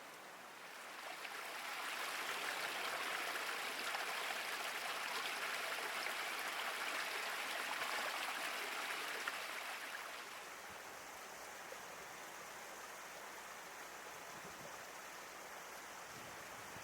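Running water making a steady rushing hiss. It grows louder about a second in and eases back to a lower level around ten seconds in.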